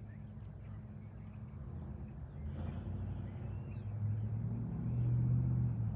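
Low, steady vehicle engine drone that grows louder over the second half, with a few faint bird chirps above it.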